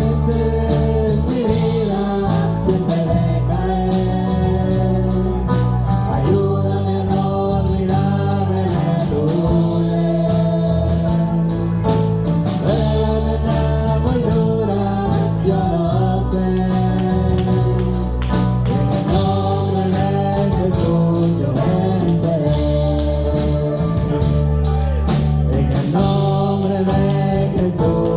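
Live gospel-style Christian worship music: voices singing a melody over a band, with held bass notes and a steady beat.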